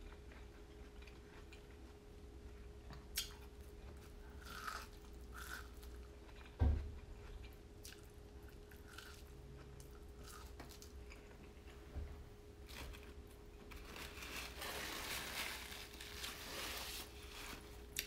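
A person chewing and biting food, with wet smacking and crunching mouth sounds. There is one louder low thump about seven seconds in, and a faint steady hum underneath.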